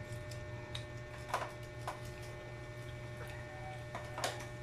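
Quiet eating sounds of children picking at and biting chicken feet: a few short clicks and smacks, the clearest about a second and a half in and again near the end, over a steady low hum.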